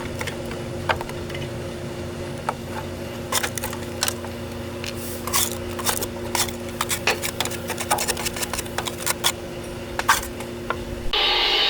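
Scattered metal clicks and clinks, like hand tools handled on metal parts, over a steady two-tone machine hum. Near the end this gives way abruptly to a louder, even hissing noise.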